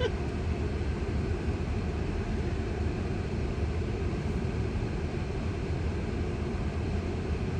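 Steady road and tyre rumble inside the cabin of a moving Tesla, an electric car with no engine sound.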